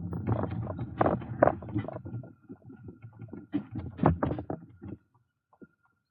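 Irregular knocks and clatter of a small boat and its gear being handled during launching, over a low rumble; the noise stops about five seconds in.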